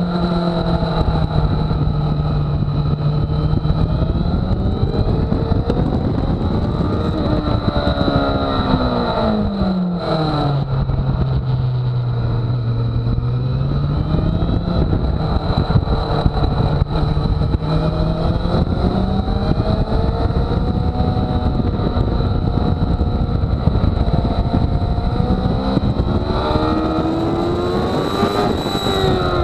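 Sport motorcycle engine running hard on a track lap, its revs rising and falling with the throttle. The revs drop sharply about ten seconds in, hold low, then climb again, with rushing wind noise throughout.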